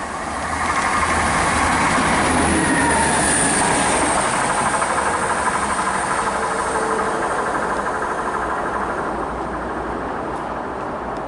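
Two-car Class 175 diesel multiple unit passing through the station at speed. The train noise builds within the first second, stays loud for a few seconds, then slowly dies away.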